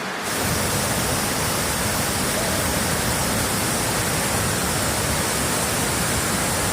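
Waterfall: a steady rush of falling water. A fraction of a second in it changes abruptly, becoming louder with more deep rumble and hiss, then holds steady.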